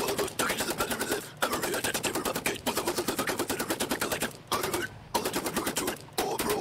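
Technical death metal guitar cover playing back: a very fast staccato rhythm of many hits a second that breaks off abruptly and restarts several times.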